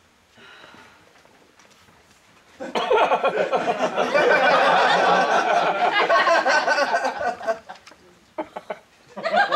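Audience laughing, breaking out loudly about three seconds in and dying away after about five seconds.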